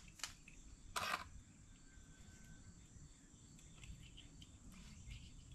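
Near silence, with one short click about a second in. No whir from the SRT-4's in-tank fuel pump, which is fed power and does not run: the pump is dead.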